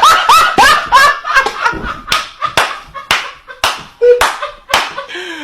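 Two men laughing hysterically while clapping or slapping their hands, sharp claps about twice a second over high rising-and-falling laughing yelps. Near the end comes one drawn-out laugh that falls in pitch.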